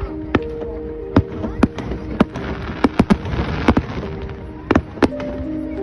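Fireworks going off: about a dozen sharp bangs at irregular intervals, with a patch of crackling near the middle. Held musical notes sound underneath.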